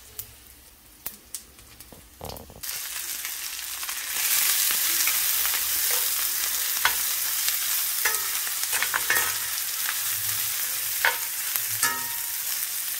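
Chopped red onions hitting hot sesame oil in a Lodge cast iron skillet and frying. The sizzle starts about two and a half seconds in and grows louder about four seconds in. A metal spoon scrapes and clicks against the pan as the onions are stirred.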